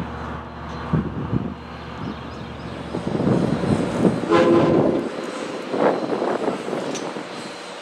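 Southern Railway 4501, a 2-8-2 steam locomotive, working slowly with a few heavy exhaust chuffs, and a short whistle blast about four seconds in.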